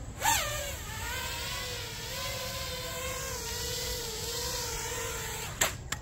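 Five33 Light Switch v2 FPV racing quad's brushless motors and propellers hovering, a steady whine that wavers slightly and is described as smooth, after a short burst that falls in pitch about half a second in. The whine stops about five and a half seconds in, followed by a sharp tap as the quad sets down.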